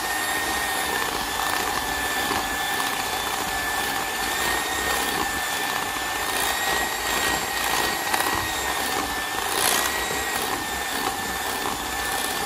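Moulinex electric hand mixer running at a steady speed with a constant high whine, its beaters churning thick batter in a glass bowl as baking powder is mixed in. A few light ticks come around the middle.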